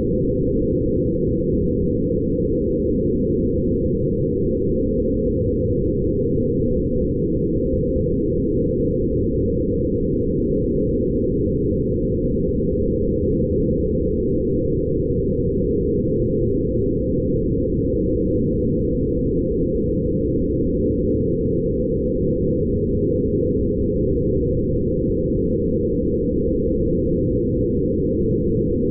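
Steady, low, grainy drone with no high sounds and no change in level, made by passing photographs of light through sound-editing software and shaping the result into a meditative ambient texture.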